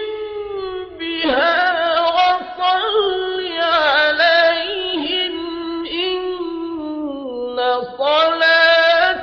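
Melodic Quran recitation by a single voice, with long vowels drawn out and bent up and down in pitch.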